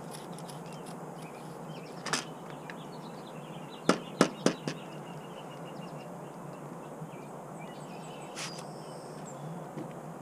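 Trigger spray bottle of Windex being squirted at an AK rifle: short, sharp sprays, one about two seconds in, a quick run of four about four seconds in, and another near the end. Under them a steady outdoor background with faint bird chirps.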